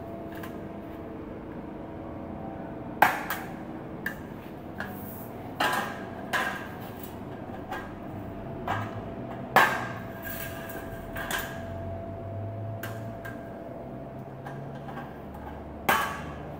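Aviation tin snips cutting through thin steel drywall channel: a series of sharp metallic snaps and clinks at uneven intervals, the loudest about three seconds in, near the middle and near the end.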